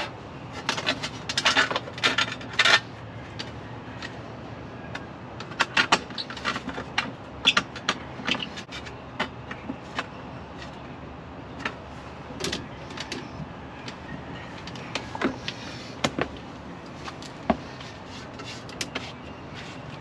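Irregular metal clinks, knocks and rattles from hand tools, bolts and the seat being worked into place in a truck cab. They come in several short bursts with pauses between.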